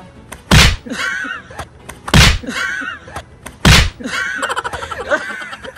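Three loud thuds about a second and a half apart, with voices in between.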